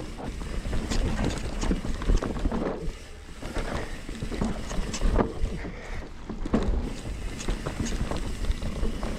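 Mountain bike riding fast down a dirt trail: wind buffeting the microphone over a low rumble from the tyres, with frequent irregular knocks and rattles as the bike goes over bumps.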